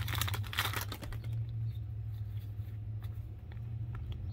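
Trading cards being flipped through by hand: a quick run of light card-on-card clicks for about the first second, then a few scattered single clicks, over a low steady hum.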